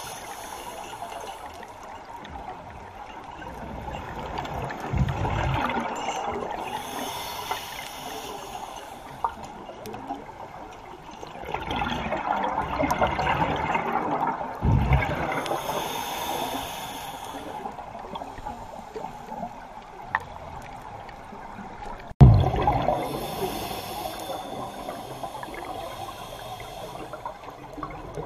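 Scuba diver breathing through a regulator underwater: a hiss on each inhale, about every eight seconds, alternating with the gurgling rush of exhaled bubbles. The loudest bubble burst comes about 22 seconds in.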